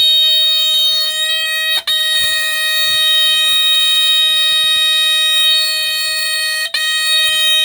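A 1978 Westclox 83079 smoke alarm sounding its alarm: one loud, steady, harsh tone that breaks off for an instant twice, about two seconds in and near the end.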